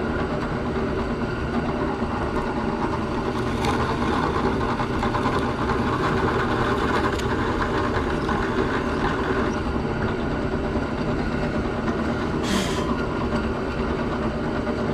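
Drill press running steadily as it bores a hole in a wooden plate. There is a sharp knock about twelve and a half seconds in and a fainter one near four seconds.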